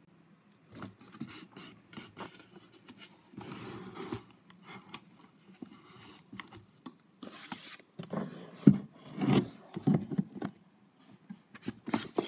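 Cardboard box being handled right against the microphone: rubbing and scraping, with scattered knocks that grow louder about eight seconds in.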